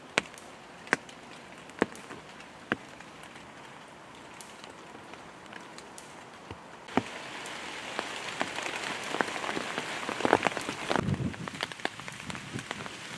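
Rain pattering: a few separate drops ticking at first, then from about seven seconds in a denser crackling patter that grows louder.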